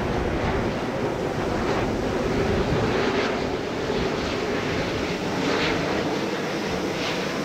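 Airbus A350-900 on final approach, its Rolls-Royce Trent XWB engines giving a steady rushing jet noise, mixed with wind on the microphone.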